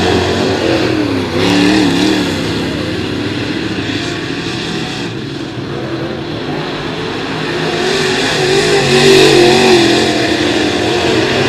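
Dirt late model race cars' V8 engines running hard around a dirt oval, the engine pitch rising and falling as they go through the turns. The sound fades somewhat about halfway through and grows louder again near the end as cars come by.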